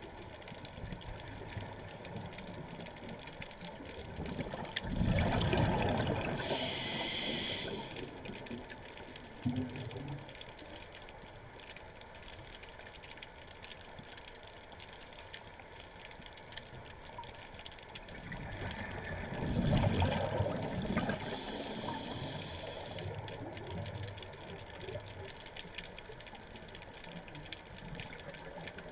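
Underwater ambience: a steady, muffled rush of water that swells twice, about five seconds in and again near twenty seconds.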